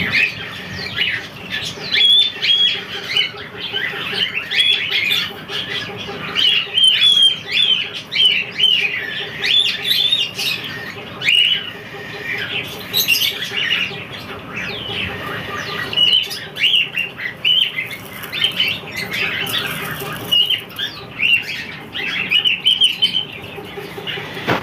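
A flock of caged pet birds chirping and squawking continuously, with many short, high calls overlapping.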